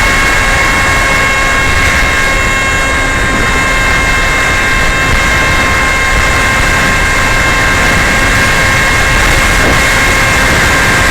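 Homemade RC plane's motor and propeller running with a steady high whine, heard from the onboard camera under a heavy rush of air noise; the whine steps up slightly in pitch right at the start.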